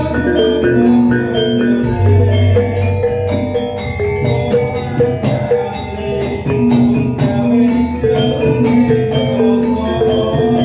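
Javanese gamelan bonang, bronze kettle gongs struck with padded mallets in a quick running pattern of many short ringing notes. Other instruments play along beneath it, with a deep low note about two seconds in.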